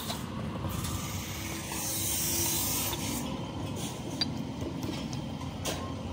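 Breath blown hard through a small tractor engine part to clear it: a rushing hiss that swells about two seconds in and then fades, over steady low background noise.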